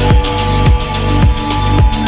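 Electronic dance music with a heavy kick drum about twice a second and sustained synth tones.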